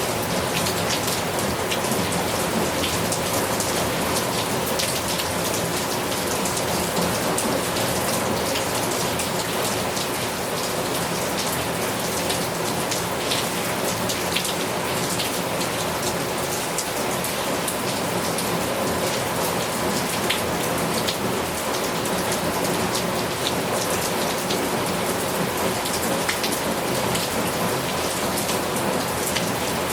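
Heavy rain falling steadily, an even hiss with many separate drops ticking on a hard surface.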